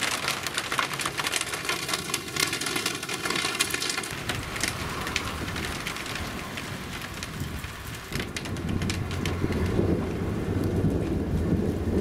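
Shower of large raindrops with the odd hailstone pattering on a surface, many sharp separate drop impacts. About two-thirds of the way in, thunder rumbles in low and grows louder.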